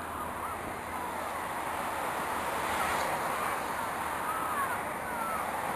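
Distant jet engines of the aircraft carrying Space Shuttle Endeavour, a steady rushing noise that swells a little in the middle. Faint short chirps sound over it.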